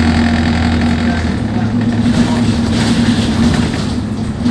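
Alexander Dennis Enviro200 bus's diesel engine running with a steady drone, its low note shifting about a second and a half in.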